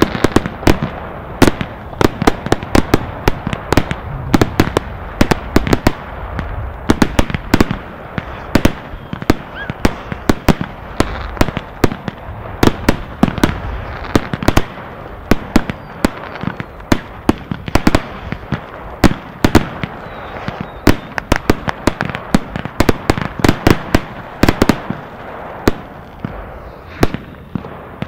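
Fireworks exploding in the air: an unbroken run of sharp bangs, often several a second and irregularly spaced, with crackling between them.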